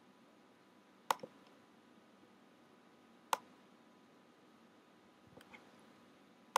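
Computer mouse clicking a few times in a quiet room: two quick clicks about a second in, a single click a little past three seconds, and fainter clicks near the end.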